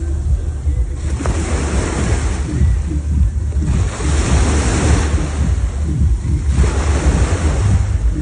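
Sea waves surging in and washing back about every two to three seconds, with a steady low rumble of wind on the microphone.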